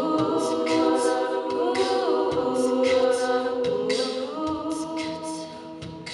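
All-female a cappella group singing sustained chords in close harmony, with a lead line moving over them. Vocal percussion adds sharp hi-hat- and snare-like beats throughout.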